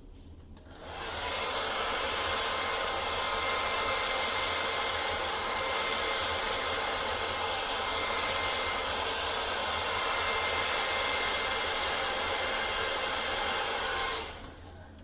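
Hair dryer switched on about a second in, blowing steadily with a faint high whine over the rush of air, then switched off and winding down near the end. It is blowing acrylic paint across a canvas in a Dutch pour.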